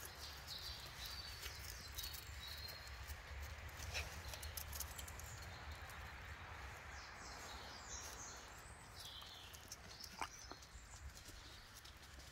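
Quiet garden ambience: scattered light rustles and ticks of whippet puppies' paws moving through dry leaves, with a few faint bird chirps in the background.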